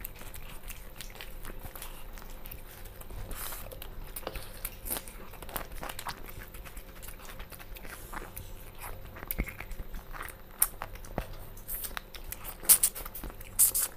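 People eating rice and chicken curry with their hands from steel plates: chewing, with scattered irregular clicks and light scrapes of fingers on the metal plates. A few sharper, louder clicks come near the end.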